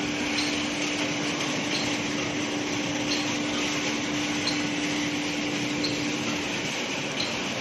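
Steady rushing noise of wood pellet plant machinery running, with fresh wood pellets pouring onto a heap. A steady hum under it stops about six and a half seconds in, and a faint tick repeats about every second and a half.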